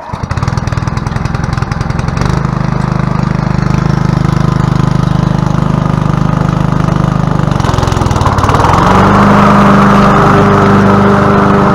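A Honda 21-inch commercial lawn mower engine cuts in suddenly and runs steadily. About eight seconds in its note dips, then settles at a higher, steady pitch.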